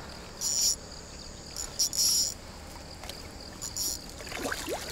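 Insects chirping in short, high buzzes, several times at irregular intervals, over a faint low background. A brief rising whistle comes near the end.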